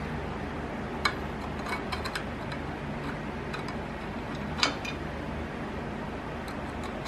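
A few sharp metal clicks and clinks as the steel pins and tow-handle parts of a dump cart are handled and fitted, the loudest about four and a half seconds in, over a steady low hum.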